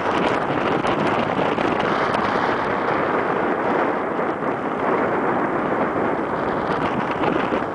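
Wind blowing hard across the microphone: a loud, steady rushing noise that drops off sharply at the very end.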